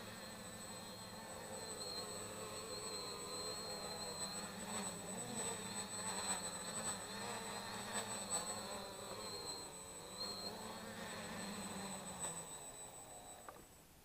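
3D-printed quadcopter's electric motors and propellers buzzing as it hovers, the pitch wavering up and down with the throttle. Near the end the buzz winds down and stops as the quadcopter sets down.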